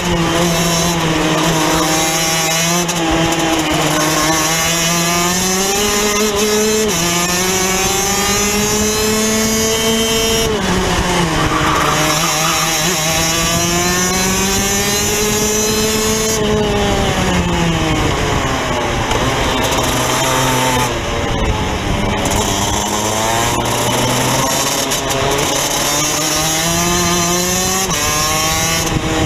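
Rotax DD2 kart's 125 cc single-cylinder two-stroke engine under race load, heard from the driver's seat. The revs repeatedly climb and fall, with a few sudden jumps and drops in pitch.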